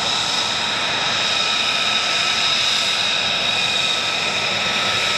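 F-35B Lightning II's Pratt & Whitney F135 turbofan running at low taxi power as the jet rolls past. It makes a steady rush with an even, high whine on top.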